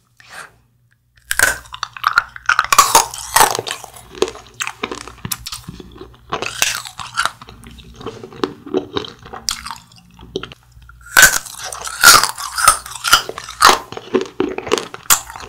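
Biting and chewing frozen Nik-L-Nip wax bottle candy: sharp crunches of the frozen wax start about a second in and give way to softer chewing. A second run of loud crunching bites comes about two-thirds of the way through.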